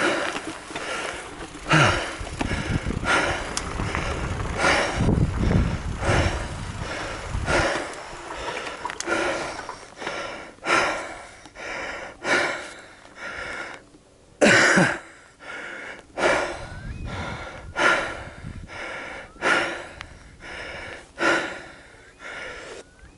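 A cyclist breathing hard and wheezing after a steep climb, about one loud breath a second. A low rumble runs under the breaths for the first several seconds, then drops away.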